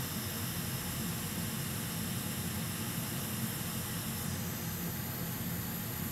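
Hot air rework station blowing a steady hiss of hot air over a BGA chip while its solder balls melt, until it drops and makes a connection.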